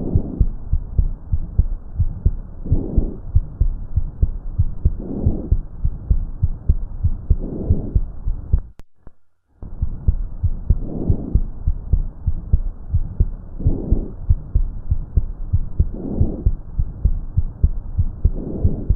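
Chest auscultation recording through a stethoscope of normal vesicular breath sounds: air moving in and out of the lungs, swelling with each breath about every two and a half seconds over a constant low thudding background. It breaks off briefly just before the middle and then resumes.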